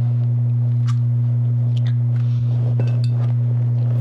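Loud, steady low electrical hum in one tone, with a fainter overtone above it. Over it come a few faint clicks and scrapes of a utensil spreading bar filling in a foil-lined baking pan.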